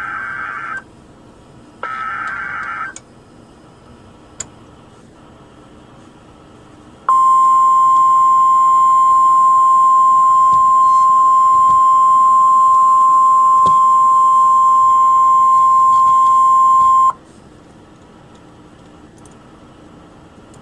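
Two short, harsh bursts of SAME digital header data tones on NOAA Weather Radio, then, about four seconds later, the steady 1050 Hz warning alarm tone held for about ten seconds and cut off abruptly. Together they announce an emergency alert broadcast.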